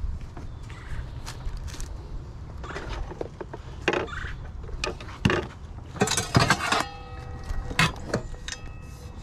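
Household items handled and set down on a table: scattered knocks and clatters, densest about six seconds in. Then a stainless steel pan is picked up and clinks, leaving a lingering metallic ring.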